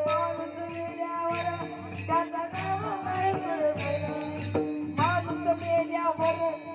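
Marathi Warkari devotional song: a singing voice carries a bending, wavering melody while brass hand cymbals (taal) clash in a repeating beat over a steady low accompaniment.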